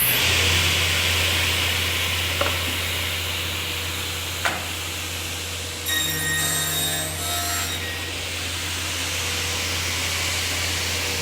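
Altendorf F-45 sliding table saw running, with its scoring blade and main blade cutting through a board over a steady low hum. There are two sharp clicks early on, and a ringing whine rises over the cut for about two seconds starting six seconds in.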